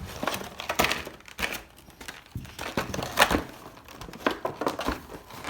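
Packaging of a Charizard GX Premium Collection card box crinkling and rustling as it is opened and its contents taken out, with irregular sharp clicks and knocks.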